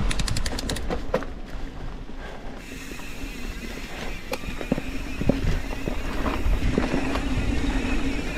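Mountain bike rolling fast down a dirt singletrack: steady tyre and wind noise with the bike knocking and rattling over bumps. A quick run of ticks sounds in the first second.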